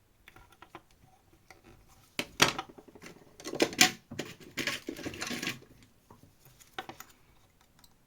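Plastic parts of a Canon PIXMA inkjet printhead being pried and pulled apart by hand: scattered light clicks, then a few loud scraping, rasping bursts in the middle, and one more click near the end.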